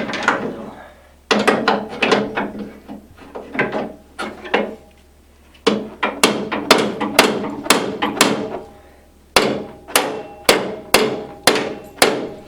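Hammer striking the steel frame and bar of a NordicTrack Commercial 2450 treadmill, forcing the bar into a welded bracket that is pinched too tight, which the owner takes for a manufacturing defect. The blows come in bursts of a few strikes each, about two a second, then a faster run near the end, each with a short metallic ring.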